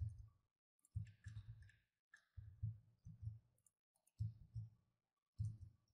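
Faint clicking of a computer mouse and keyboard in use, in short clusters of sharp clicks and soft desk thuds a second or so apart.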